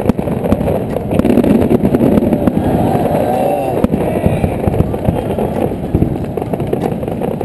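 Aerial fireworks bursting: a dense run of bangs and crackles, with crowd voices underneath.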